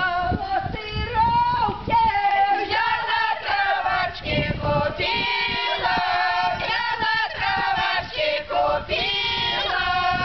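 Group of village women singing an unaccompanied Polesian round-dance song of the Arrow (Strela) rite, several voices together in the open folk style. From about nine seconds in they hold a long sustained chord.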